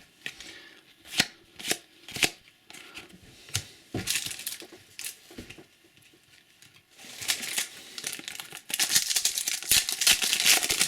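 Trading card packet wrapper being torn open and crinkled by hand. Scattered sharp clicks and taps of card handling come first, then a dense crinkling of the wrapper starts about two-thirds of the way in.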